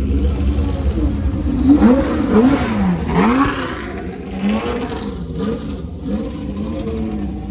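Engines of 1966–71 Le Mans race cars running at low speed, blipped in quick throttle revs that rise and fall in pitch several times. The revs are loudest in the first half, then settle to lower running with smaller blips.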